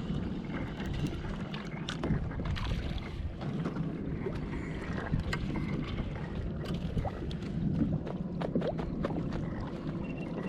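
Steady wind noise on the microphone over a fishing kayak on the water, with many small scattered knocks and ticks.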